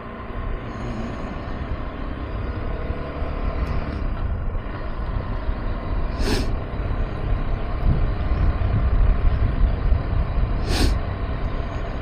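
KTM 390 Adventure's single-cylinder engine running under way, with road and wind noise, growing slowly louder. Two short sharp noises stand out, about six and eleven seconds in.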